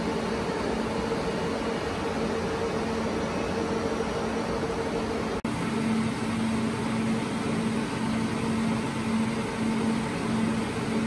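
Steady whirring of HP rack servers' cooling fans, with a low hum running through it. It breaks off for an instant about halfway through, then carries on the same.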